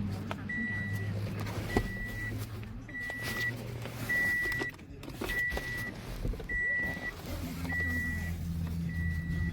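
Electronic beeping: a short high tone repeating about once a second, over a low hum that stops about four seconds in and comes back about three seconds later.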